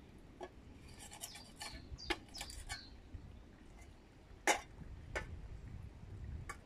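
Faint countryside ambience: a low rumble of wind with scattered short chirps and ticks, and one sharper click about four and a half seconds in.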